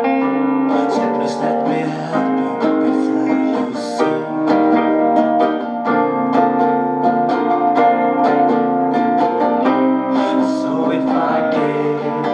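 Instrumental music led by plucked strings, guitar-like, with many quick picked notes over held tones.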